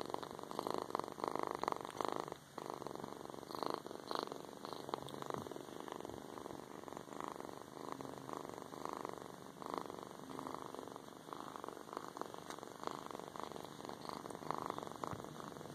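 Himalayan kitten purring continuously, close to the microphone.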